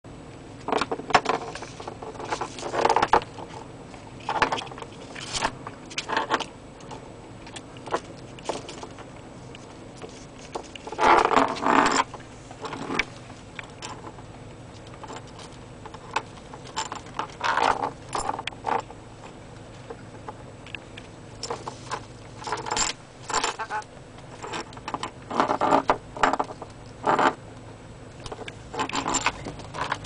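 A dry sea urchin shell rattling and scraping against a plastic car dashboard in irregular short bursts, as a rainbow lorikeet rubs against it and mounts it.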